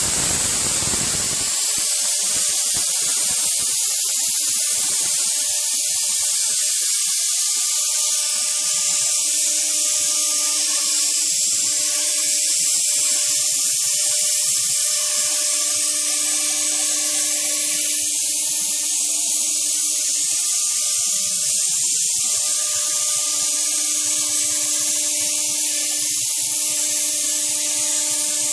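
ShopBot CNC router spindle running with a steady high hiss as its bit cuts through pink foam board. A lower hum under it starts and stops every few seconds as the gantry moves along the cut.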